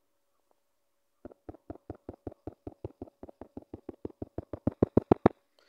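Online roulette game's chip-placing sound effect: short clicks, about six a second, repeating as bets go down one after another on the betting layout and getting louder toward the end.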